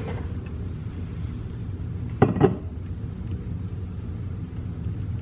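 Kitchenware knocking twice in quick succession about two seconds in, over a steady low hum.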